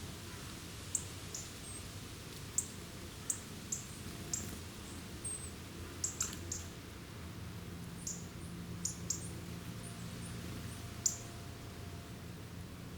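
Small birds calling: about fifteen short, sharp, high-pitched chips and ticks at irregular intervals, some in quick pairs, over a faint steady low hum.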